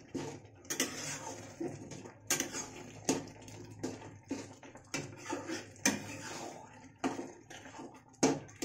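Metal spoon scraping and clacking against a metal kadhai while stirring thick tomato masala, with irregular knocks roughly every half second as the spices are fried into the mashed tomatoes.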